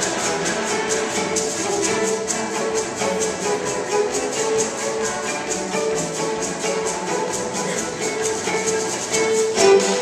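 Solo fiddle playing a reel with a chamber string orchestra of violins and cellos, over a steady, quick percussion beat.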